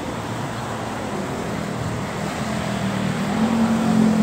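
A motor vehicle's engine, a low hum that grows steadily louder from about halfway through as it draws nearer, over a steady background noise.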